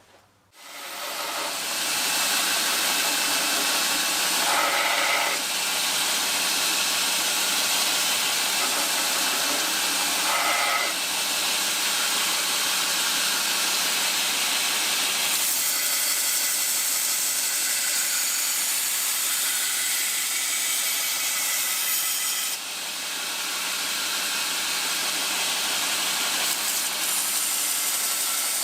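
Belt grinder starting up and running with a steady hiss and low hum as the edge of a thin O1 steel kitchen knife blade is ground on the old belt, taking off the scale and the square corners. The sound shifts several times as the blade is pressed to the belt and moved.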